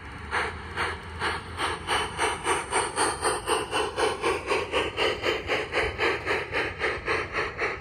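LGB garden-scale model steam locomotive's sound unit chuffing steadily at about four chuffs a second as the train runs past.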